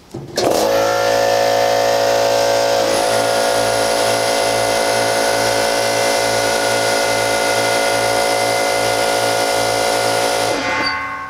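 Two Central Pneumatic 2.5 HP, 125 PSI electric air compressors starting one after the other. The first starts about half a second in and the second joins about two and a half seconds later, the staggered start of a delay circuit that keeps both from starting at once. Both run together with a slow pulsing beat in their hum, then shut off near the end.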